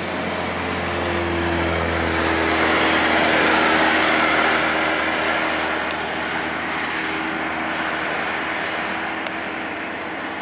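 Airbus A330-300 jet engines on the landing rollout: a loud rushing roar with a faint steady hum that swells about a second in, peaks a few seconds later and then dies away, as reverse thrust is applied and released after touchdown.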